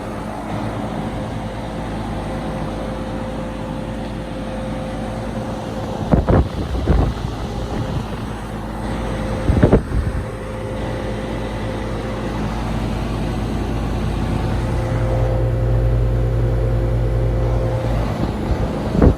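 1989 Carrier Tech2000 air conditioner running, a steady hum with a few steady tones in it. A few short knocks come about six and ten seconds in, and the low hum swells for a few seconds near the end.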